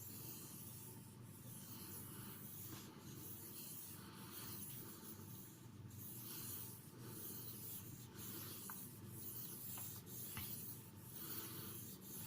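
A CTS XHP steel knife blade being stroked lightly across a whetstone in even strokes, about one a second, with a soft rubbing scrape: final polishing of the edge.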